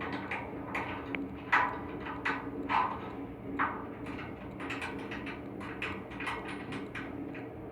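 Irregular knocks and clatter of tools and metal parts being handled on an air handling unit's blower during a V-belt change, over a steady machinery hum.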